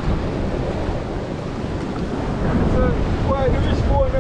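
Wind buffeting the microphone over the wash of surf on a beach. From about two-thirds of the way in comes a string of short, pitched chirps that rise and fall, several in quick succession.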